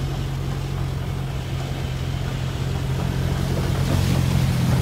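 Truck engine running steadily as the truck drives through floodwater, a low hum with a wash of water and air noise over it, growing slightly louder near the end.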